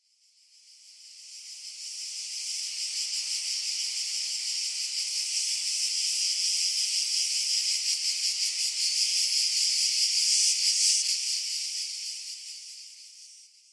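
Dense, high-pitched insect chorus with a fast pulsing texture, fading in over the first couple of seconds, holding steady, then fading out near the end.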